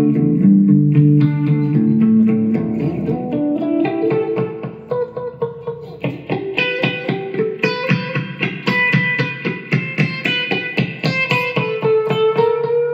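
Instrumental background music: held notes at first, then from about four seconds in a fast run of plucked notes.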